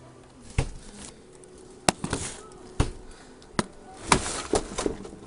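Irregular sharp knocks and clatters, about eight in five seconds with a quick cluster near the end: hard-boiled eggs and hands bumping against a refrigerator as the eggs are worked down behind it.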